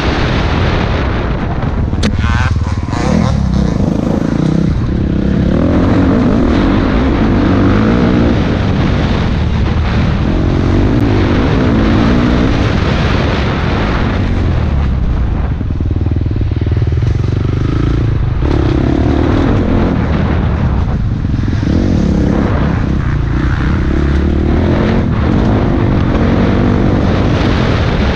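Dirt bike engine running hard under load, its revs rising and falling repeatedly as the rider works the throttle.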